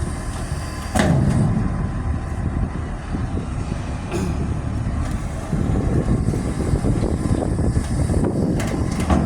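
Heavy vehicle engine running steadily at a low rumble, with a sudden loud knock about a second in and a few lighter knocks later.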